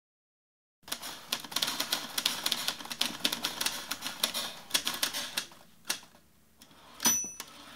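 Typewriter keys clacking rapidly from about a second in, thinning to a few strokes, then a single bell ding near the end, like a typewriter's carriage-return bell.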